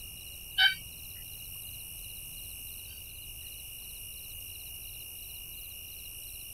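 Quiet soundtrack with a steady high whine under faint, regular, cricket-like chirping, about two or three chirps a second. There is one short sharp sound about half a second in.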